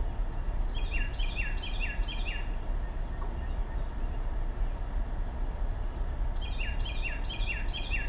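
Carolina wren singing its rolling "tea-kettle, tea-kettle, tea-kettle" song: two runs of four or five quick repeated phrases, the first about a second in and the second near the end, over a steady low rumble of background noise.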